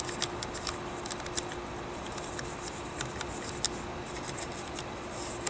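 Small cleaning brush scrubbing inside an AK-pattern rifle's steel receiver and trigger group, a run of quick scratchy strokes with light metallic ticks, working CLP in to loosen carbon deposits.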